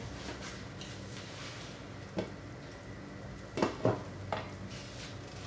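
Chicken and glass-noodle soup bubbling and simmering in a wok, a steady crackling hiss, with a few brief knocks about two to four seconds in.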